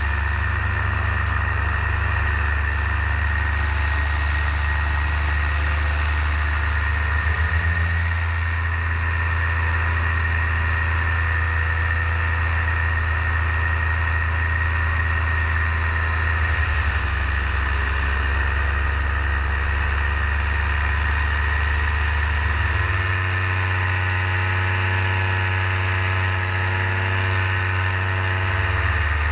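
Paramotor engine and propeller running steadily in flight, heard from the pilot's harness: a constant low drone with a thin high whine over it, the pitch shifting slightly about two-thirds of the way through.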